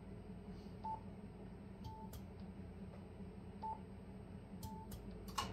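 Four short beeps from a ham radio transceiver's front panel as its controls are pressed. They come in two pairs, each a brief beep followed about a second later by a slightly longer one, over a low steady hum, with a click near the end.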